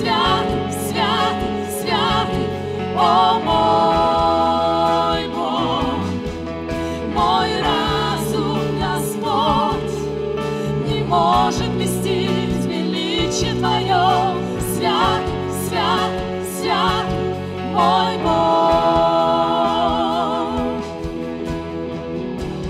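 A worship band performing live: several singers, women's voices leading, sing a slow song in held notes with vibrato, over keyboards, bass and light cymbal strokes.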